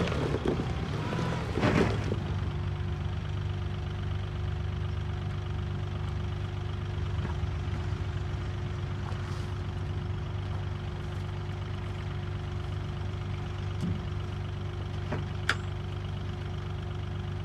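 Engine idling steadily, with a couple of faint clicks late on.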